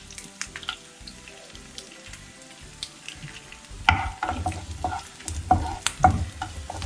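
Garlic and dried red chillies frying in coconut oil in a pan, sizzling with scattered crackles. From about four seconds in come louder, irregular knocks and scrapes of stirring in the pan.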